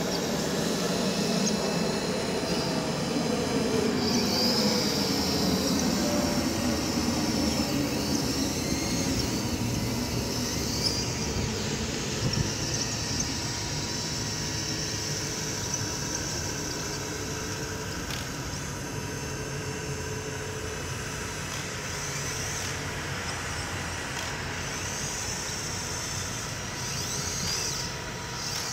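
Electric drives and hydraulic pumps of a 1:14.5 scale RC tracked loader and RC hydraulic excavator running as they push and dig soil. A motor whine falls slowly in pitch over the first several seconds, and a higher pump whine comes and goes.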